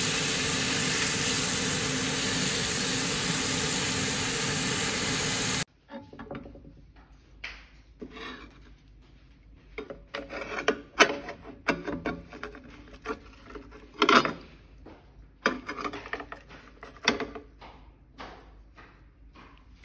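Steady loud rushing hiss from the hot grill pan on the stove, cutting off abruptly about six seconds in. Then a metal utensil scrapes and taps against the nonstick grill pan, in scattered strokes with a few sharper clicks, as the grilled fish fillets are lifted.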